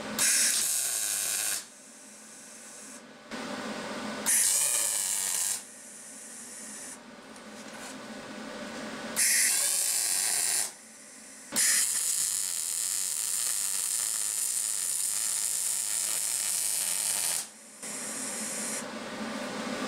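Wire-feed welder arc running in a series of welds on steel pipe, starting and stopping sharply: a run of about a second and a half, a pair of runs a few seconds in, another short run, then one long bead of about six seconds, and a last short run near the end.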